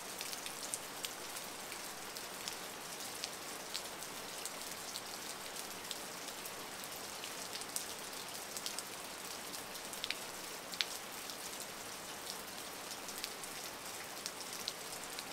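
Rain falling steadily on a grass lawn and wet stone paving slabs: an even hiss with many scattered, sharper drop splashes.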